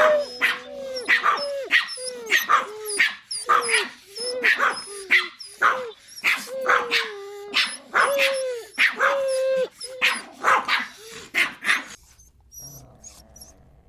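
Small dog barking rapidly, short yaps with a falling pitch about two a second, stopping about twelve seconds in.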